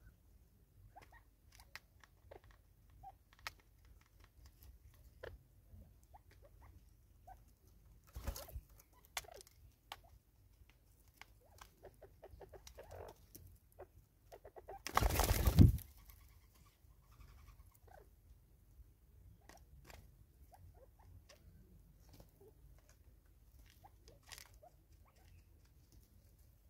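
Natal spurfowls feeding at a seed container on a stump: scattered light pecking taps and rustles in dry leaves, with one loud rush of noise about a second long roughly halfway through.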